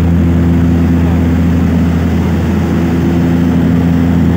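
Propeller airplane's engines running steadily in flight, heard from inside the passenger cabin: a loud, even low hum with a few steady tones above it over a wash of noise.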